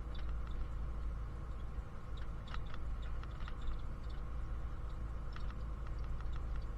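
Bus cabin on the move: a steady low engine and road rumble with a constant hum, and scattered light clicks and rattles from the bus fittings.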